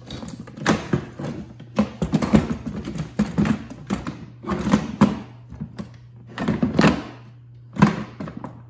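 Cordless power tools and hand tools knocking and clattering against each other and the hard plastic walls of a Milwaukee Packout toolbox as they are packed into it: an irregular run of knocks, several of them sharp and loud.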